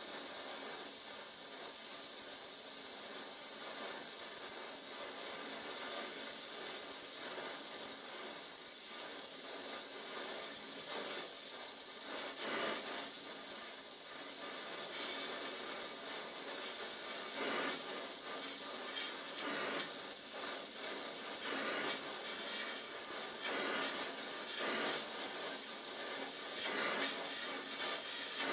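Steady hiss of a Donmet 132A micro gas-welding torch flame, with occasional crackles as steel filler wire is melted into the puddle on a pipe.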